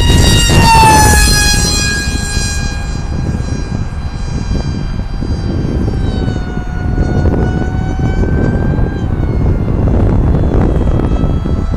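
Electric motor and propeller of an RC flying wing, 700 W on a 4S LiPo, whining at high throttle. The whine drops in pitch as the plane passes close, about a second in. It then fades, grows again for a few seconds as the plane comes back around, and picks up once more near the end.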